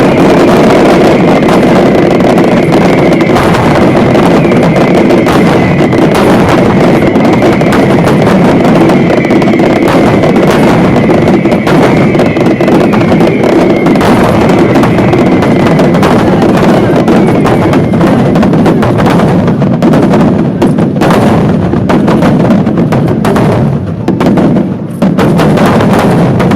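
Fireworks display barrage: a dense, continuous run of rapid bangs and crackles, loud throughout, thinning out and dropping away at the very end.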